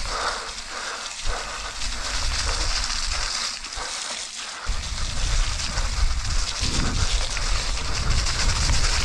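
Mountain bike riding down a wet, slick trail: a steady hiss of tyres and spray with occasional knocks and rattles from the bike, and a heavy low rumble joining about five seconds in.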